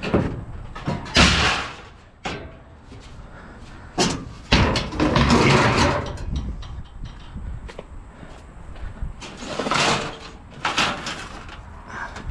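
Scrap metal being handled and tossed: a string of knocks and thuds, with a longer rattling clatter in the middle and two more bursts near the end.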